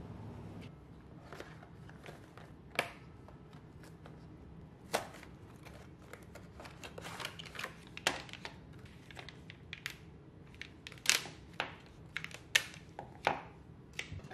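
Plastic sauce-mix pouch of roux cubes crinkling and crackling as hands squeeze and press it on a wooden cutting board, with irregular sharp crackles and a few louder snaps.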